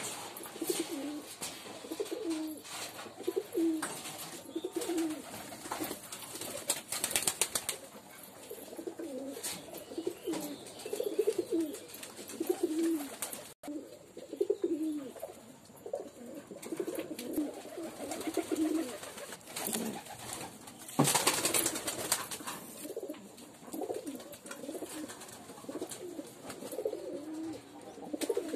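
Domestic pigeons cooing, short low coos repeating about once a second, with faint scattered clicks and one brief loud burst of noise about two-thirds of the way in.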